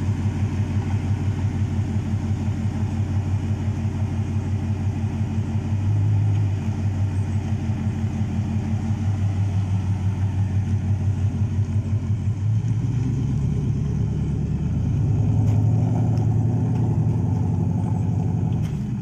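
Engine of an early-1960s Ford F-series pickup, running with the hood off, idling with an even pulsing beat, then pulling away. Its note turns deeper and louder partway through, swells, and eases slightly near the end as the truck drives off.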